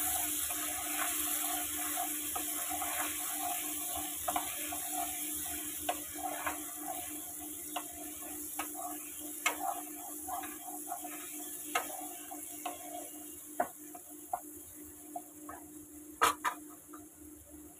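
Onion paste sizzling in hot oil in a non-stick kadai, stirred and scraped with a wooden spatula. The sizzle slowly fades, and there are scattered scrapes and taps, with two sharper knocks near the end.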